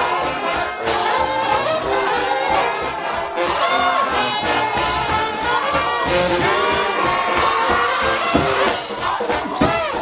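A shout band of trombones playing a gospel tune in close harmony, with notes sliding up and down over drums keeping the beat.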